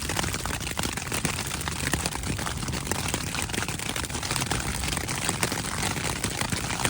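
Hail and rain striking a tent's fabric in a dense, steady patter of small ticks.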